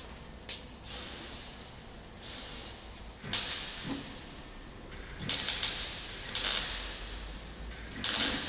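MIG welder spot- and stitch-welding sheet steel on a VW Golf Mk2 body, crackling in short bursts of a second or less, about six times, with pauses between. The holes being closed up are in the car's rusty bodywork.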